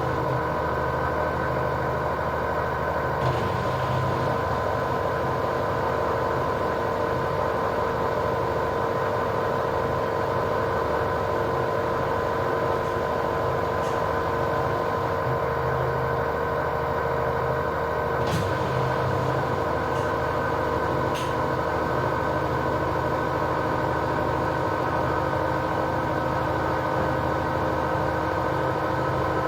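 LG washing machine on its spin cycle, the drum spinning at a steady speed with a constant whine over a low hum, and a few faint ticks.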